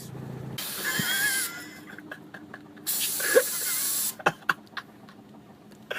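Two bursts of hissing spray from an aerosol can, the first about a second in and the second from about three to four seconds in, each lasting roughly a second, followed by a few faint clicks.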